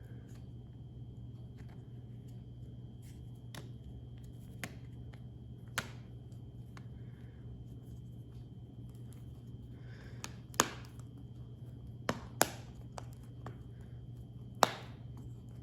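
Small sharp clicks and taps from handling and pressing together the opened iPhone 5c: a few light ticks, then four louder snaps in the last third, over a steady low hum.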